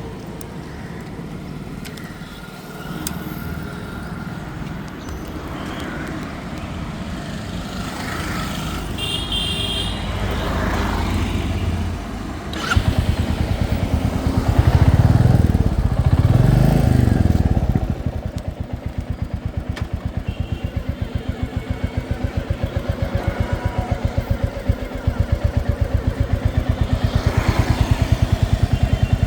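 Royal Enfield Classic 350's single-cylinder engine running with a regular pulsing beat. It is revved twice about halfway through, then settles back to a steady idle.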